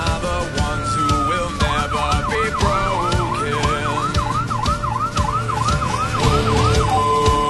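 An ambulance's electronic siren: a slow wail for about the first second and a half, then a fast yelp of about two and a half sweeps a second, changing near the end to a two-note hi-lo. Music plays underneath.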